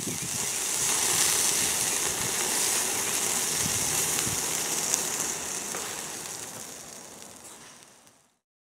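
Hamburger patty sizzling on a charcoal grill grate while a spatula presses it down: a steady loud hiss with faint crackles, fading away near the end.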